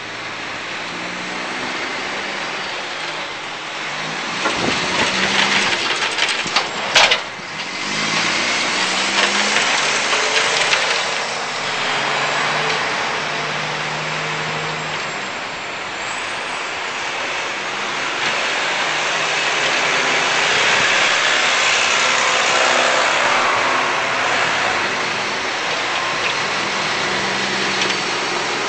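A snowplow truck's engine running under a steady broad rushing noise as its front plow blade pushes through deep snow. There is a brief break about seven seconds in.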